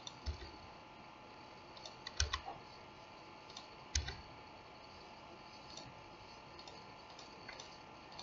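Computer mouse clicks and keyboard key presses: scattered sharp clicks, the loudest about two and four seconds in, over a faint steady hum. These are the clicks of selecting timeline frames and pressing F6 to insert keyframes.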